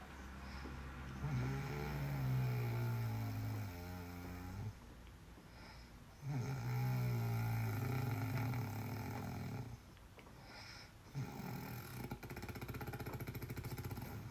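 A man snoring loudly, with a helicopter-like sound: two long, low, rasping snores of about three and a half seconds each, then a fast fluttering rattle near the end.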